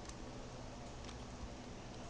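A couple of faint computer clicks, one near the start and one about a second in, over a steady low hum and hiss.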